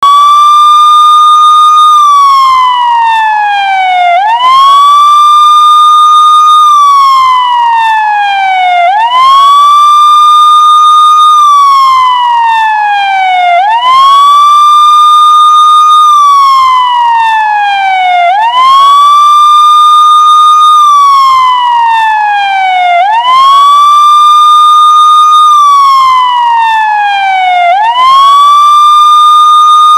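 Police siren wailing in a slow, repeating cycle: the pitch sweeps quickly up, holds high for about two seconds, then glides slowly down before rising again, about every four and a half seconds. It is loud throughout.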